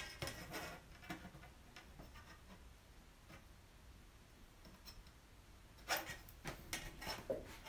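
Faint handling sounds of marking measurements on a stencil: a few small clicks and taps, quiet in the middle, then a quick cluster of sharper taps near the end.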